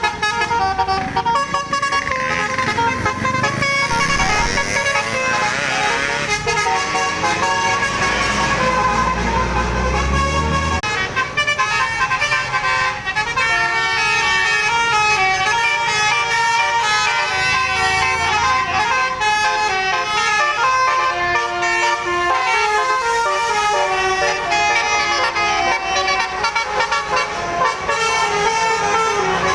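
Indonesian 'telolet' bus horn, a multi-tone horn playing a quick stepping melody over and over. A low engine rumble swells about eight to eleven seconds in.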